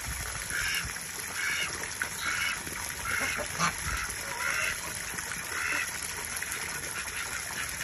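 Domestic waterfowl calling over and over, short calls about once a second, over the steady hiss of a garden hose spraying water into a muddy pen.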